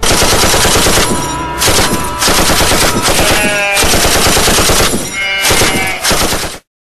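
Loud, nearly continuous automatic gunfire, with short lulls about a second and a half in and about five seconds in, cutting off suddenly near the end.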